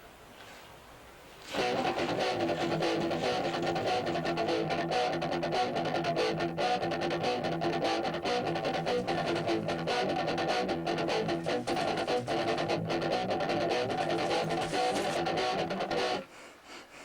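Guitar music, strummed, from the film's score. It starts about a second and a half in and cuts off suddenly near the end.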